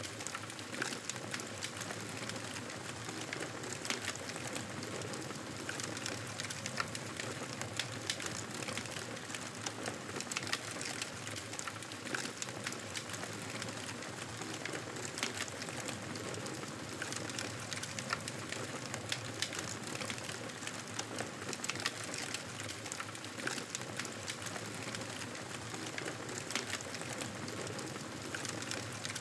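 Campfire burning, a steady hiss with frequent sharp crackles and pops of the burning wood.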